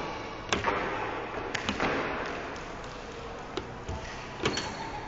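A handful of sharp knocks and thuds, about five spaced irregularly, from a small child's feet and body on a hard floor as she runs and jumps, over steady room noise.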